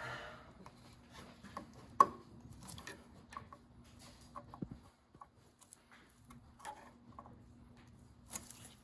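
Scattered light clicks and taps of hand tools and parts being handled during engine reassembly, with one sharp click about two seconds in, over a faint steady hum.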